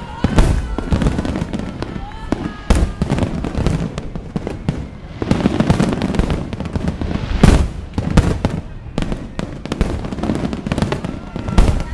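Fireworks display: aerial shells bursting with repeated booms, a dozen or more in quick, irregular succession, over continuous rumbling and crackling, the loudest bang a little past halfway. Voices talk underneath.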